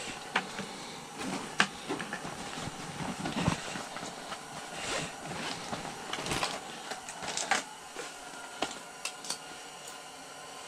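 Rummaging through a nylon tackle backpack for a pair of pliers: rustling fabric with scattered, irregular clicks and knocks of gear being shifted inside it.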